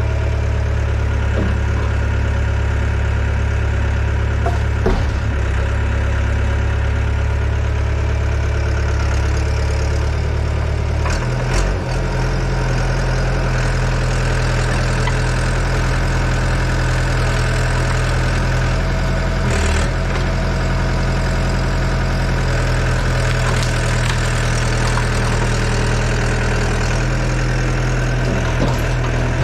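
Yanmar Vio80 excavator's diesel engine running steadily; its note shifts about a third of the way in, and a few brief knocks sound over it.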